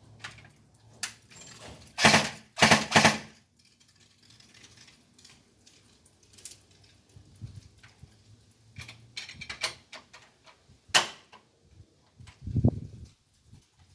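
Airsoft MG42 firing two short bursts about two and three seconds in, then scattered clicks and rattles of the gun being handled, with a sharp click near the end.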